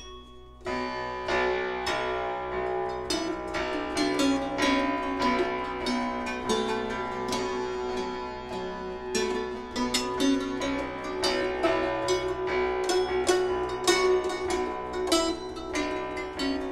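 RAV steel tongue drum in the Kotamo scale, played by hand: a flowing run of ringing, overlapping notes that starts after a brief pause.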